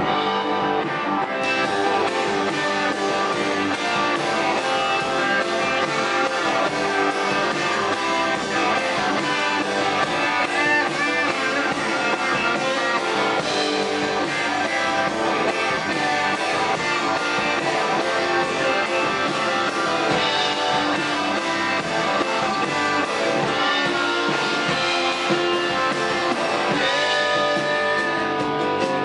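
A live rock band playing, with electric guitar to the fore over the rest of the band.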